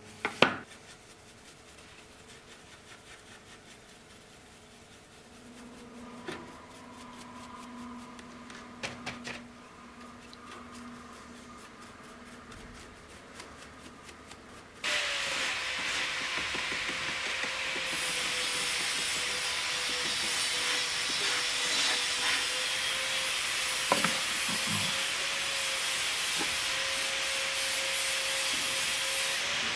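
Faint rubbing and a few light clicks, then about halfway through a machine starts suddenly: a loud steady hiss with a steady hum that runs on unchanged.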